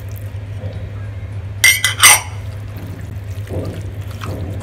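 Two quick, ringing clinks about a second and a half in, as a small ceramic bowl knocks against the rim of a glass mixing bowl while spice paste is wiped out of it by hand, over a steady low hum.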